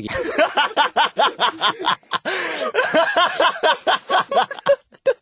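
Hearty laughter: a fast run of ha-ha pulses for about two seconds, then a second, looser bout of laughing.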